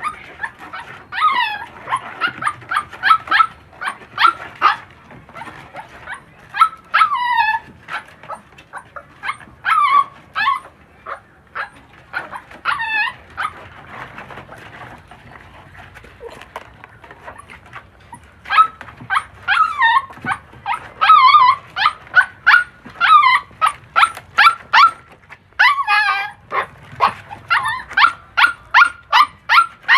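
Puppies yipping and barking in quick runs of short, high-pitched yelps, some sliding in pitch, with a lull about halfway through.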